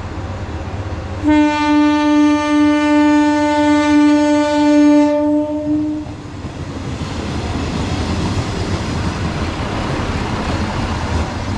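A Sanriku Railway diesel railcar sounds its horn in one long steady blast of about four seconds as it approaches. Then the railcar's engine and wheels on the rails grow louder as it pulls in alongside.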